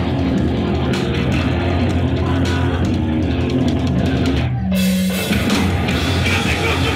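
Hardcore band playing live, loud and dense: distorted electric guitars, bass and drum kit with crashing cymbals. About two-thirds of the way through, the sound drops briefly to one held low note, then the full band comes back in.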